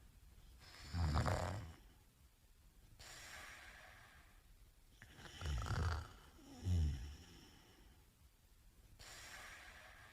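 A sleeping man snoring: a loud, low rattling snore about a second in, then two snores close together around six seconds in, with quieter breaths in between.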